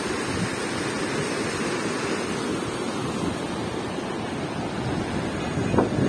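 Steady rush of the fast-flowing, whitewater Mur river through its rapids. Near the end, gusts of wind buffet the microphone.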